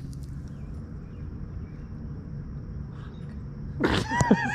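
Steady low background noise, then, near the end, a loud call with a wavering, arching pitch from an animal.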